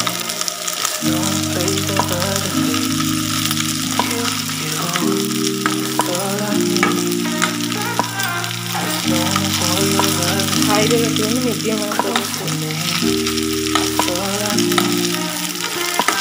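Fish fritters shallow-frying in hot oil in a nonstick pan, sizzling steadily, with occasional clicks and scrapes of a spatula turning them. Background music runs underneath.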